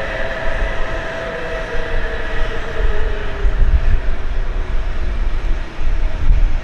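ALFA-X (E956) Shinkansen test train running past: a heavy rumble of the train on the track, with a whine that slowly drops in pitch as the cars go by.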